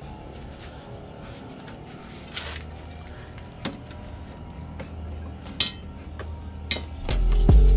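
A few light metal clinks and knocks as a metal bumper reinforcement bar is handled and set against the front of a car. Near the end, hip-hop music with a heavy bass beat comes in and is the loudest thing.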